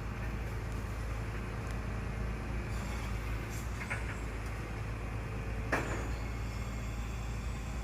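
Garbage truck engine running steadily with a low rumble, broken by two brief sharp noises, the louder about six seconds in.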